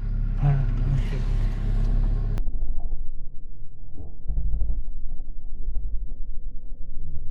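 A low rumble with a faint steady hum, starting abruptly a couple of seconds in, after a stretch of rustling noise with a brief voice.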